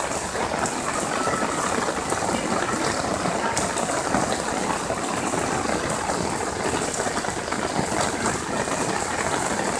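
Rushing floodwater and heavy rain in a flooded street: a steady, even water noise with no breaks.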